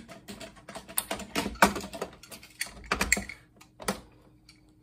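Irregular clicking and light clatter of small plastic and metal monitor parts and tools being handled on a table during a teardown, about a dozen sharp clicks over some four seconds, thinning out near the end.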